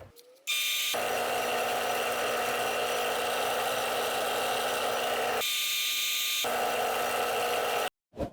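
A power tool running steadily at full speed, its tone shifting briefly in the middle, then cutting off abruptly near the end.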